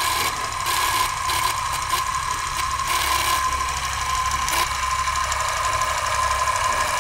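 Film projector sound effect: a steady mechanical clatter with a constant hum and a low rumble, broken by a few short bursts of crackle.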